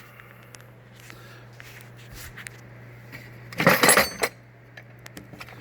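Metal hand tools clinking and rattling in a steel toolbox drawer, with light clicks throughout and a louder burst of clattering a little past halfway.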